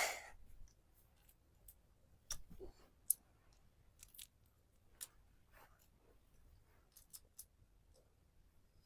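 Faint, scattered clicks and clacks of wooden toy trains and wooden track pieces being pushed and handled.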